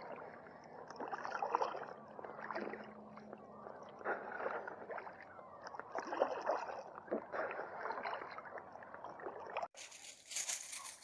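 Double-bladed kayak paddle stroking through lake water from an inflatable kayak: a splash and slosh every second or two, with water running off the blades between strokes. Near the end a brighter steady hiss takes over.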